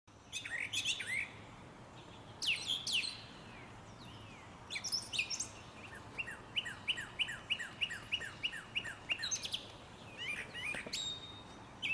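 Birdsong: a series of short, high chirping phrases, with a run of about a dozen quick falling notes, about four a second, in the middle.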